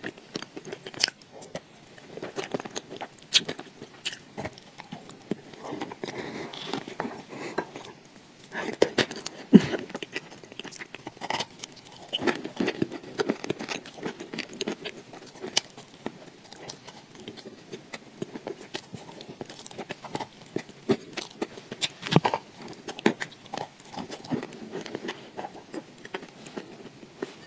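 Close-miked eating of thick wet chalk paste: sticky, wet mouth and lip sounds with frequent sharp clicks and smacks.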